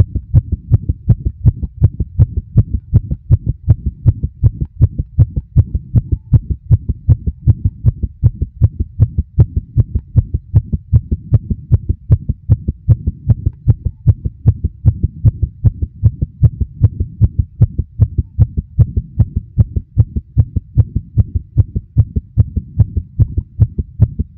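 Human heartbeat, a steady rhythm of low thumps.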